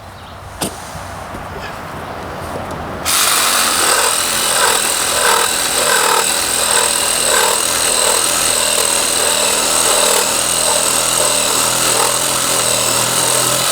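Ryobi 18-volt cordless reciprocating saw with a pruning blade cutting wood: a loud, steady motor whine with the blade's rasping, starting suddenly about three seconds in.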